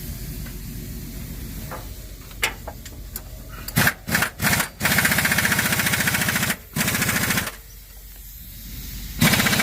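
Impact wrench hammering in bursts while undoing bolts: a few short blips about four seconds in, then a run of almost two seconds, another shorter run, and a last burst near the end.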